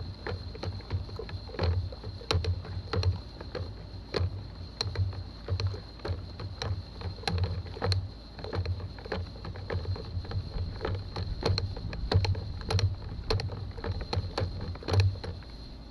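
A bucket of baking soda, car wash soap and water being stirred by hand: the liquid sloshes, with irregular knocks a few times a second.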